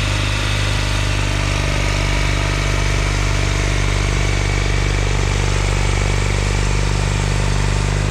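John Deere 318 garden tractor's Onan two-cylinder engine running steadily at an even speed.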